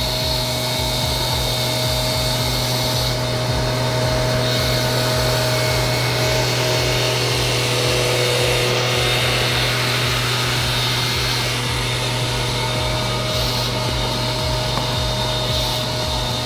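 Steady mechanical drone of the machine hauling on a rope and pulley to tip an uprooted tree stump over, running evenly under load.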